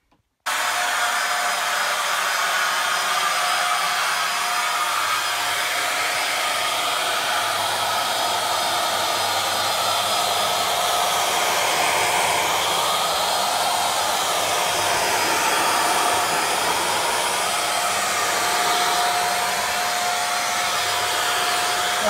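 Kitfort corded stick vacuum cleaner running steadily as it is pushed over a thick shag rug, a constant motor whine with a high steady tone. It cuts in abruptly about half a second in.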